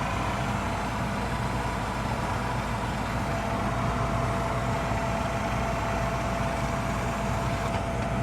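Gas furnace running after lighting: a steady mechanical hum of its motors and burners, with a faint steady whine.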